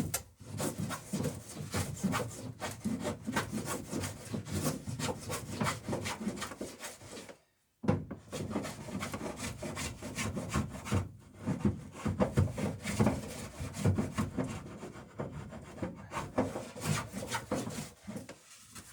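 Low-angle block plane shaving the edge of a wooden boat plank in quick, repeated strokes, trimming its bevel. The strokes break off completely for a moment about seven and a half seconds in.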